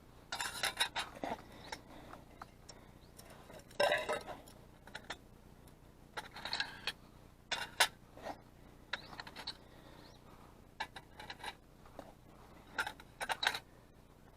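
Metal cookware and stove parts being handled: irregular clinks, rattles and scrapes of pot, lid and burner pieces being set up.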